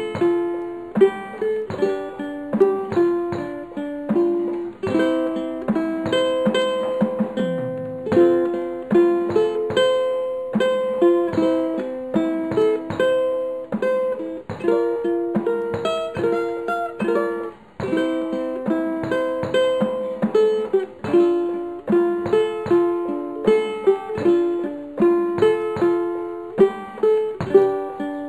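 Ukulele playing an instrumental tune, with plucked melody notes and chords in a steady stream.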